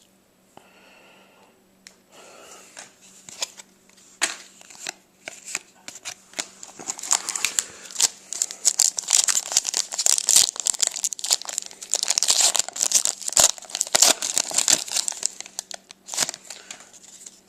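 Crinkling and tearing of a foil trading-card pack wrapper being opened and crumpled by hand, sparse at first and then a dense, rapid crackle through the middle before tailing off near the end.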